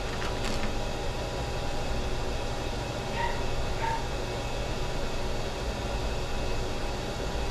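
Grooming scissors trimming a Shih Tzu's tail hair over a steady room hum, with two short high squeaks about three and four seconds in.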